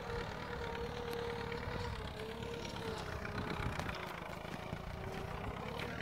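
Tractor engine running steadily, a hum with a slowly wavering pitch over a low rumble.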